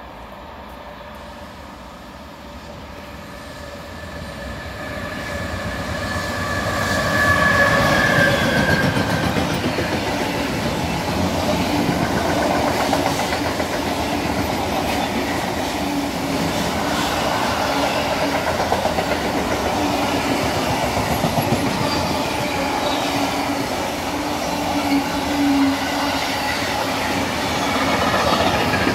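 A container freight train approaches and passes close by. Its rumble builds over the first several seconds to its loudest about eight seconds in, with a brief whine at the peak. Then comes the steady rolling rumble of the container wagons, with wheel clatter over the rail joints.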